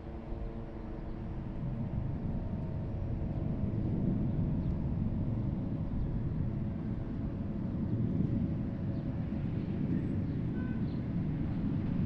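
Distant engine noise over a city: a steady low rumble with a faint hum of tones above it, building over the first few seconds and then holding. No explosion is heard.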